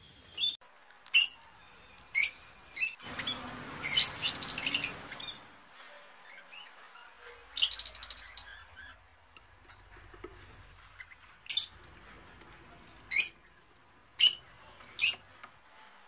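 Small pet parrots in cages giving short, sharp high-pitched chirps, about a dozen spread out with gaps between them. Two longer bursts of rapid chirping come about three seconds in and again near the middle.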